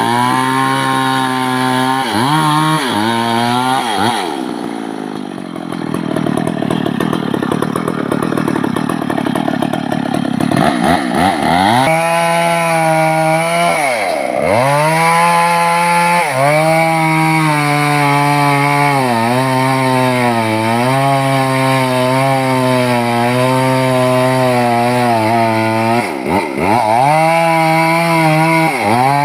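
Stihl MS 382 two-stroke chainsaw cutting teak, running at high revs with its pitch wavering under load. The throttle drops off and picks back up several times: a few times in the first seconds, around the middle, and near the end.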